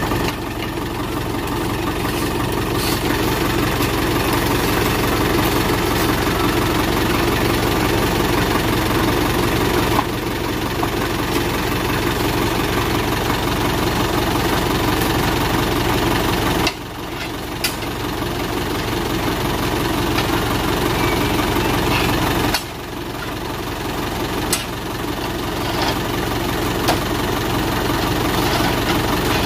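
Truck engine idling steadily, with a few knocks as oil palm fruit bunches are thrown into the steel truck bed.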